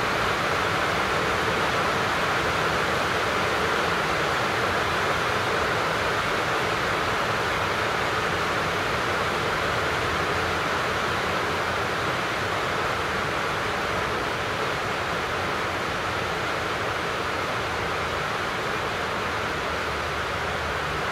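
Steady rain falling, an even noise without breaks or distinct drops.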